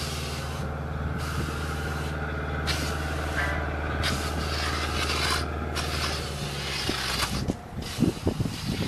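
A small motor hums steadily while hissing noise comes and goes in stretches over it. The hum stops about six seconds in, and irregular knocks follow near the end.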